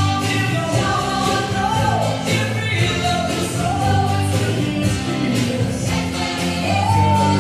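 Music with singing, the sung melody moving over a steady bass line.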